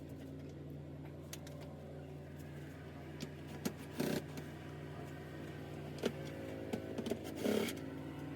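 A steady low mechanical hum, with a few light clicks and knocks scattered through it.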